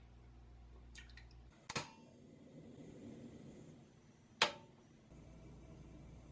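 Two sharp metallic clicks from a tabletop gas stove and its saucepan, the first followed by a soft hiss of the lit burner flame at medium heat; a few faint ticks come just before the first click.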